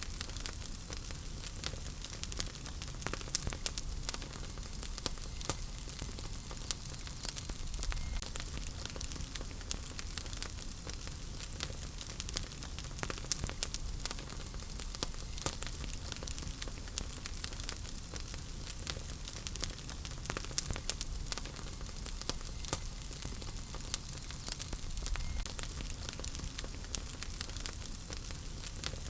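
Wood fire burning in a fireplace: many small sharp crackles and pops, scattered irregularly over a steady hiss and low rumble of flames.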